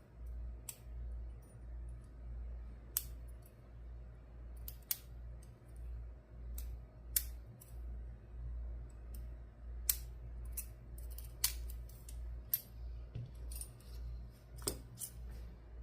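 Small sharp metallic clicks at irregular intervals from a padlock and a Lishi pick being worked by hand, over a low steady hum.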